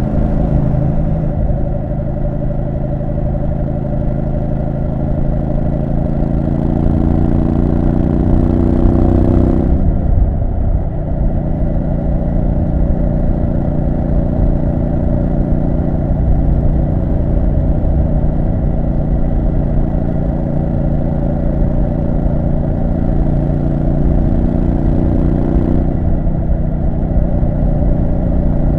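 Triumph Street Scrambler 900's 900 cc parallel-twin engine under way, its revs rising slowly for about ten seconds, then dropping sharply and holding steady after that, over a low wind rumble.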